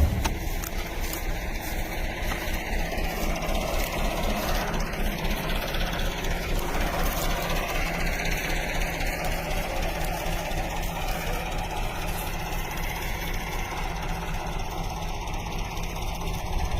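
Tractor engine running steadily, with a thump right at the start.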